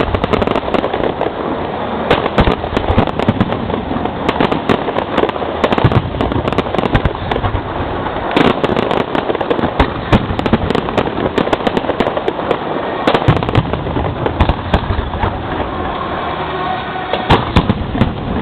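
Fireworks display heard from the launch site: a dense, unbroken barrage of sharp bangs and crackling, with a cluster of louder bangs near the end.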